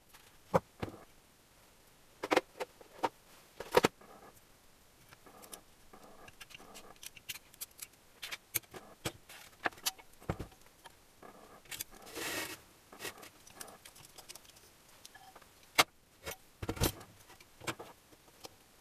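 Small metal parts clicking, tapping and scraping as a piston and its wrist pin are handled and fitted onto the connecting rod of a cast-aluminium engine crankcase, with a short rustle midway and a couple of sharper knocks near the end.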